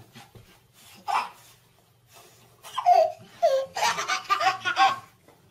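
Baby laughing: a short squeal about a second in, then a long run of rapid belly laughs from about three seconds on.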